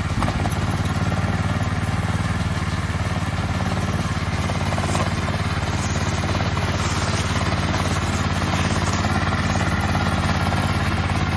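Small engine of a walk-behind meadow mowing machine running steadily at an even speed.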